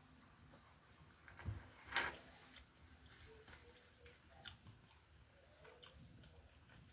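A person quietly chewing a mouthful of chicken, beans and rice, with a few soft clicks, the sharpest about two seconds in.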